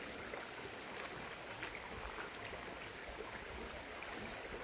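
Steady low noise of river water in a rocky pool, with a low rumble and a few faint ticks.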